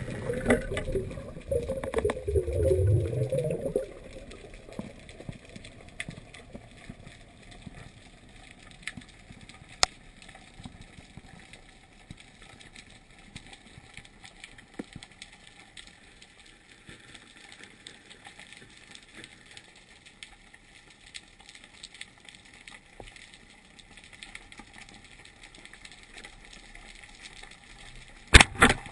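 Water bubbling and churning around the camera for the first four seconds, then a faint steady underwater hiss with scattered small clicks. Two sharp knocks come near the end.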